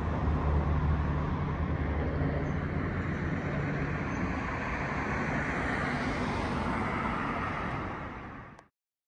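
Road traffic on a city street: a steady wash of passing vehicles, with the low drone of a large engine strongest in the first few seconds. The sound fades and cuts off near the end.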